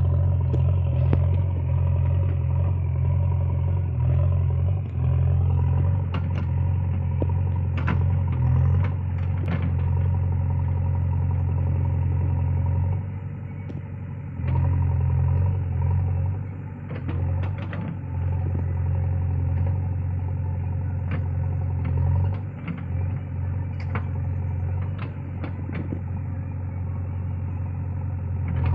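JCB backhoe loader's diesel engine running while the backhoe digs, its note rising and falling as the work load changes, with scattered clanks of the metal arm and bucket.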